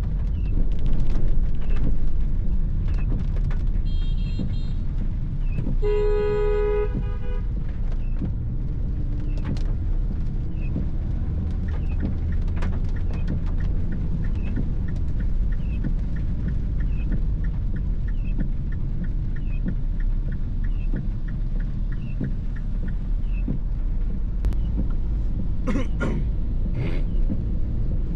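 Steady engine and road rumble heard inside a MINI R55 Clubman's cabin while driving. A car horn toots faintly about four seconds in, then sounds louder for about a second a couple of seconds later.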